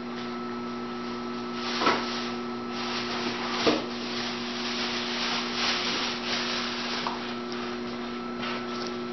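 Pen scratching across paper in short, uneven writing strokes as a child writes out numbers, over a steady low hum.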